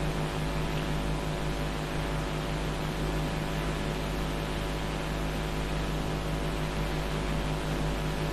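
Steady electrical hum with a constant hiss, unchanging throughout and with no distinct clicks or tool sounds.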